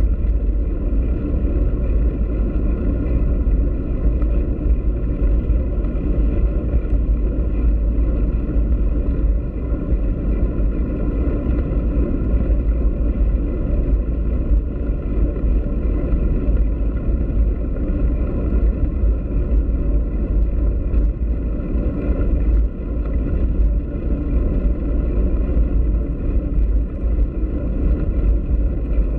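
Steady deep rumble of wind buffeting and tyre noise on a bicycle-mounted camera while riding over block paving.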